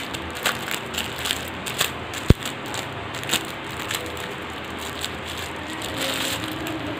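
Clear plastic packaging crinkling and crackling as it is pulled open by hand, busiest in the first few seconds, with one sharp click a little after two seconds in.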